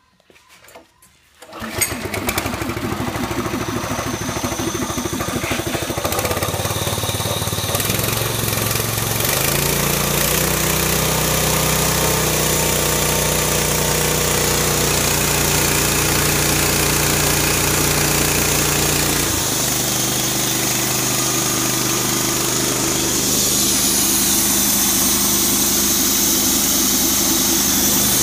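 Small gasoline engine starting about a second and a half in, then running steadily as it drives a belt-driven 3000 psi air compressor. Its pitch steps up around ten seconds in and drops back near twenty.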